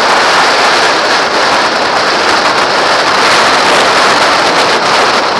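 Loud, steady rush of wind over a helmet-mounted camera on a motorcycle at freeway speed, drowning out most of the engine.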